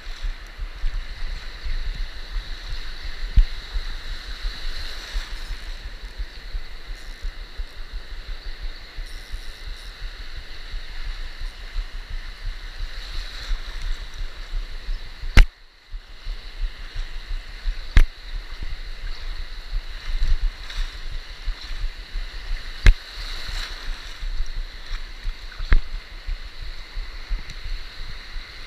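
Shallow surf washing and churning around the waterline, heard close up through an action camera, with a steady low rumble of moving water. Several sharp knocks from handling, the loudest about halfway through, followed by a brief gap in the sound.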